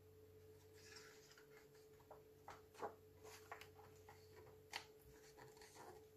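Faint paper rustle and a few soft ticks as a picture book's page is turned and pressed flat by hand, over a low steady hum.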